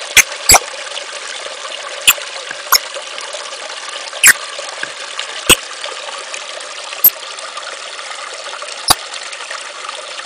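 Crackling surface noise: a steady hiss broken by about eight loud, sharp clicks and pops at irregular gaps.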